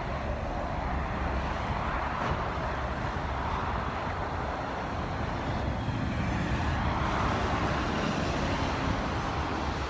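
Interstate highway traffic passing steadily: a continuous wash of tyre and engine noise that swells slightly about seven seconds in.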